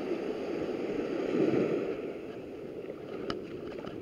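Small waves lapping and washing along a sandy river shore, a steady wash that swells a little before the middle and eases after that, with a couple of faint clicks near the end.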